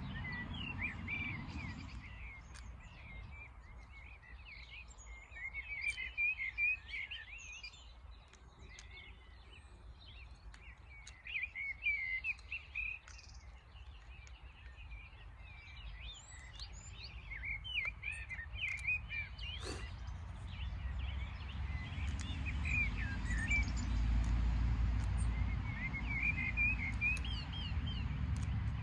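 Small birds singing and chirping in quick, twittering phrases throughout, with a low wind rumble on the microphone building up in the second half and one sharp click about two-thirds of the way through.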